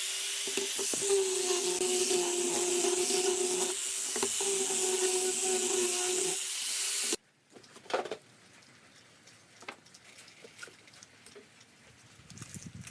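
An electric power tool runs with a steady whine and a loud hiss for about seven seconds, its pitch sagging a little in places, then cuts off suddenly. Light clicks and knocks of work follow.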